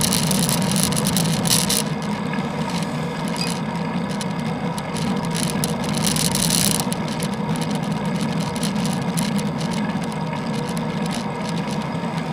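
Steady rumbling road and wind noise from a bicycle ride on a wet road, picked up by a bike-mounted action camera, with a higher hiss that comes and goes.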